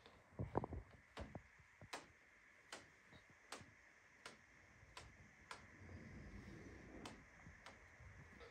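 A clock ticking evenly in a quiet room, about one sharp tick every three-quarters of a second, with a few soft low thumps near the start.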